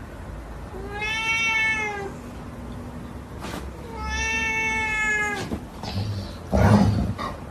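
Domestic cat meowing: two long, drawn-out meows, each rising then falling in pitch, about a second in and about four seconds in. A few short knocks or thumps come between and after them, the loudest near the end.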